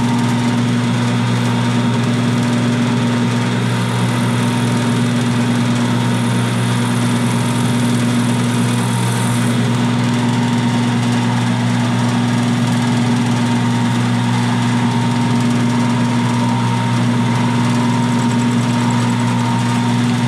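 Milling machine spindle running steadily with an end mill turning, a constant hum with a few fixed tones, as the cutter is fed in to touch down on the side of the steam engine bed. A faint high hiss comes in about four seconds in and stops near the ten-second mark.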